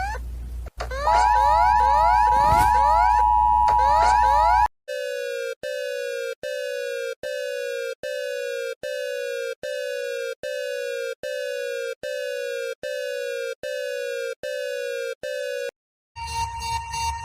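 Electronic emergency alert tones, one after another. First a steady tone under quickly repeating rising sweeps, then about fourteen short falling beeps a little under a second apart, and near the end another pulsing alert tone starts.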